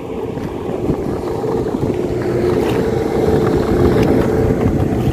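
Engine of a passing motorboat (a motorized bangka) running with a steady drone, growing gradually louder as it comes closer through the fishing spot.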